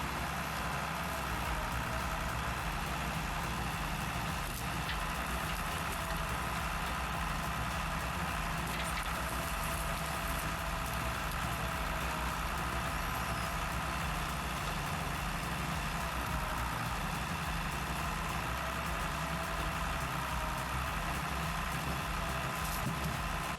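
Heavy logging machine's diesel engine running steadily, with a steady mechanical whine over the low rumble.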